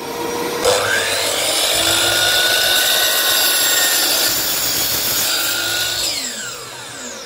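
Dewalt drop saw starting up about a second in, its blade cutting down through a timber board, then the motor released and winding down in a falling whine near the end. A vacuum cleaner runs steadily underneath for dust extraction.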